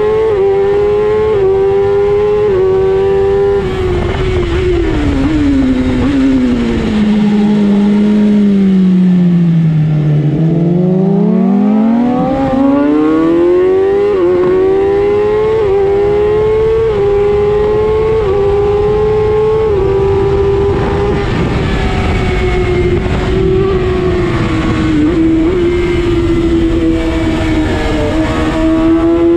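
Race motorcycle engine at racing speed, heard from on board over wind rush: revs climbing through quick upshifts, then falling steadily through downshifts to low revs about ten seconds in, then climbing through the gears again and holding high with brief dips at each upshift.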